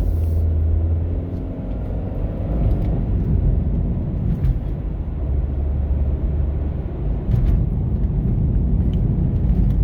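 Car driving with a steady low rumble, and a faint falling drone in the first three seconds.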